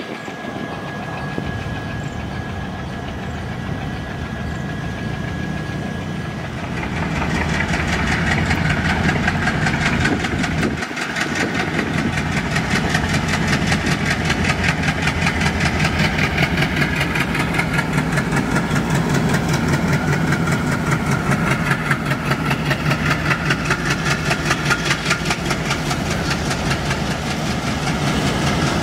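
ALCO-type Indian Railways diesel locomotive running as it passes with its train: a heavy engine sound with a fast rhythmic chug. It grows louder about seven seconds in, and a thin steady whine sits on top for the first few seconds.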